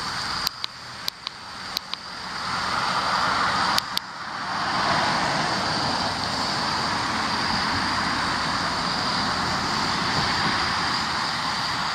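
Outdoor rushing noise that swells over about two seconds and then holds steady, over a faint steady high hiss. A handful of sharp clicks in the first four seconds.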